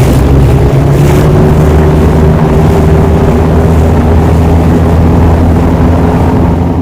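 Twin 7.4-litre MerCruiser gasoline V8 engines of a Sea Ray 340 Sundancer running under way, a loud, steady engine drone.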